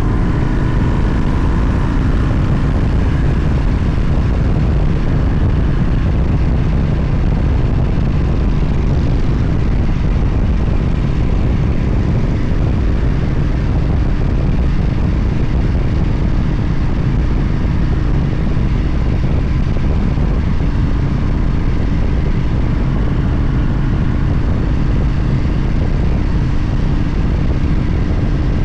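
Motorcycle running at a steady cruising speed with a constant low rumble, mixed with heavy wind noise rushing over the microphone.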